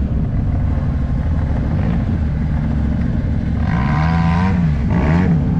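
Side-by-side UTV engine running steadily under the riders, heard from the cockpit. In the second half its pitch rises and falls several times as the throttle is worked.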